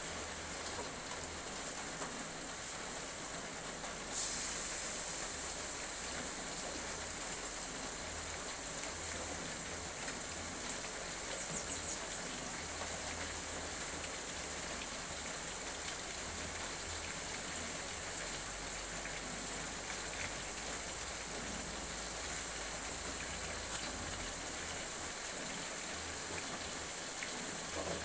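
Food sizzling in a hot wok, the sizzle jumping louder about four seconds in and then holding steady.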